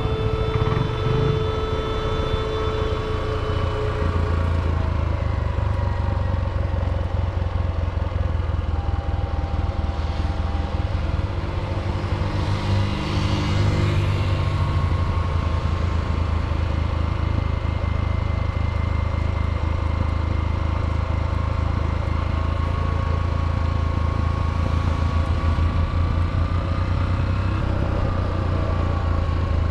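Motorcycle engine running steadily with a low hum as the bike rides along, heard from on board.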